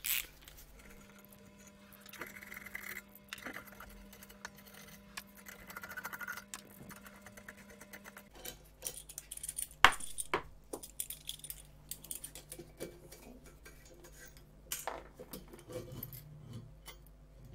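Light metallic clicks and clinks of a small spanner working the nuts and studs that hold the beam control assembly to the electron microscope column as it is unbolted, with one sharper clink about ten seconds in.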